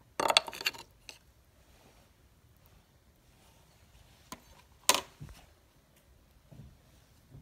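Quiet room tone broken by a short cluster of clicks and rustling at the start, a faint click about four seconds in, then a sharp, loud click followed at once by a low knock near five seconds.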